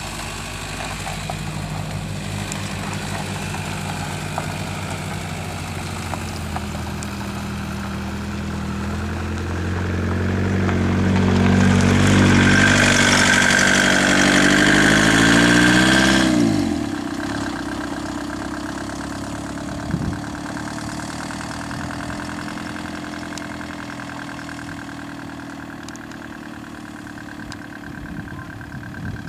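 Volkswagen van engine running, its note rising as it is revved to a loud, high pitch about halfway through, then the revs dropping quickly back to a quieter, steady run.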